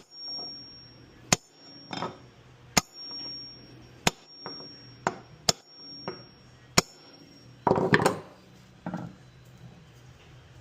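Hammer blows on a socket used as a driver, knocking a washer drum bearing through its housing in the tub. There are six sharp strikes about a second and a half apart, each with a short metallic ring, then a clatter of quicker knocks near the end.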